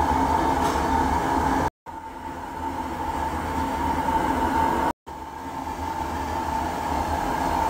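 Steady machinery hum with a constant high whine, broken twice by brief dropouts to silence. After each dropout it gradually rises back.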